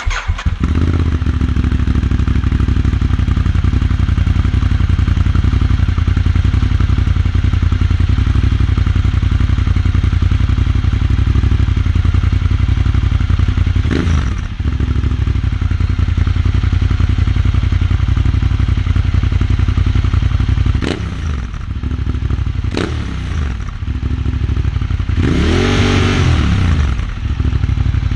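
Ducati Monster 1200S's 1198 cc L-twin engine breathing through a full Termignoni carbon exhaust with the diffusers fitted ("quiet mode"), starting up and idling. It is revved in a short blip about halfway through and twice more a little later, then held up for about two seconds near the end.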